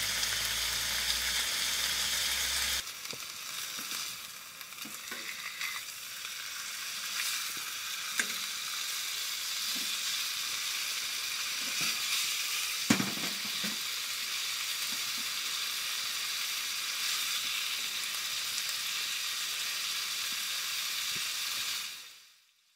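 Chicken breasts sizzling steadily in a non-stick frying pan on a portable gas stove, with a low rumble under the sizzle that stops about three seconds in. A few light knocks against the pan follow, the sharpest about halfway through, and the sizzle fades out just before the end.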